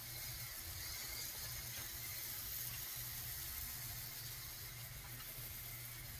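Garden-hose sprayer attachment spraying cleaning solution onto a surface: a steady hiss of spraying water, with a steady low hum underneath. The spray is a pre-treatment meant to loosen dirt and mildew before pressure washing.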